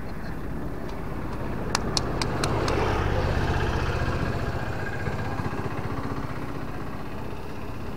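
Road traffic passing close by: a low engine and tyre rumble that swells a few seconds in and then fades away, with a few sharp clicks shortly before it.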